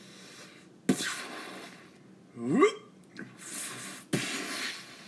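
Blaster-fire sound effects made by mouth: a sharp hissing blast about a second in and another about four seconds in. Between them come a short voiced sound rising in pitch, the loudest moment, and a further hiss.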